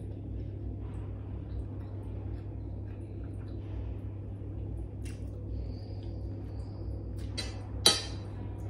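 Quiet tableside eating sounds over a steady low hum, with a few faint clicks of a spoon and one sharp clink about eight seconds in as the spoon is set down against the ceramic bowl.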